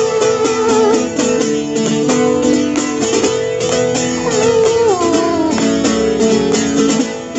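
Live band music: strummed guitar with a long held, wavering melody note above it that slides down about halfway through.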